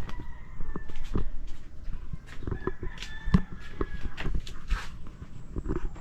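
A rooster crowing in the background, over a run of sharp knocks and clatter.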